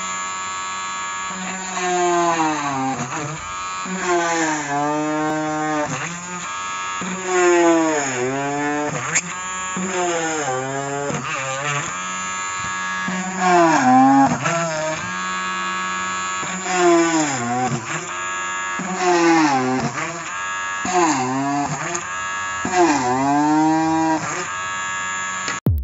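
Homemade cordless drill with an RS550 high-rpm DC motor drilling holes in a wooden board: a steady motor whine whose pitch sags each time the bit bites under load and climbs back as it frees, about nine times. It stops suddenly near the end.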